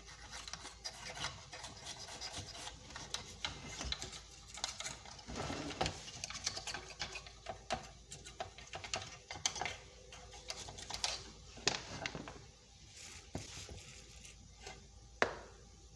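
Light rubbing and scratching with many small scattered clicks: hand tools being worked over a burnt circuit board while it is cleaned. A sharper single click comes about fifteen seconds in.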